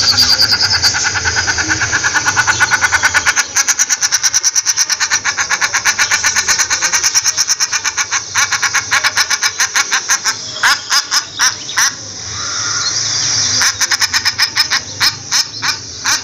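Common shelduck calling: a loud, rapid series of short repeated calls, several a second, with a brief pause about three and a half seconds in and a sparser, more uneven run of calls past the middle.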